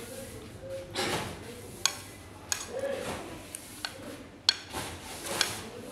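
A metal spoon clinking and scraping against a plate while eating, with a handful of separate sharp clinks.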